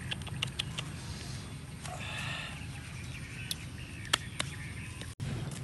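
Small clicks and rustles of fish and leaves being handled over a steady low rumble, with a brief high call about two seconds in. A sharp click a little after four seconds is the loudest sound.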